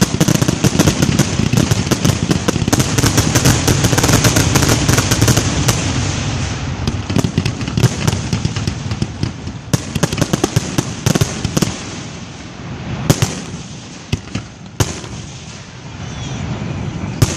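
Fireworks display: a dense barrage of rapid bangs and crackling for the first several seconds, thinning out to a few separate booms and pops as it dies down.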